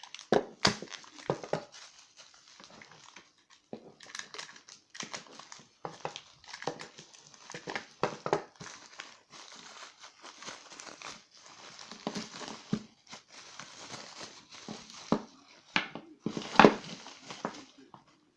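Packaging being unwrapped by hand: irregular crinkling and rustling with short clicks, and a sharper crackle near the end.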